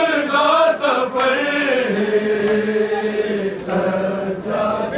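Male voice chanting a mourning lament in long drawn-out notes, the pitch dropping to a lower held note about two seconds in.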